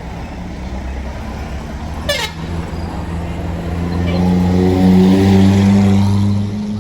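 A large bus's diesel engine running and getting louder as the bus accelerates past, its pitch rising and the sound peaking about five seconds in. A brief high sound falling in pitch comes about two seconds in.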